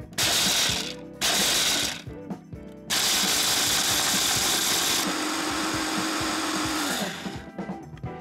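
Electric mini chopper grinding whole almonds into almond powder: two short pulses of about a second each, then a continuous run of about four seconds that becomes smoother about five seconds in as the nuts break down, stopping shortly before the end.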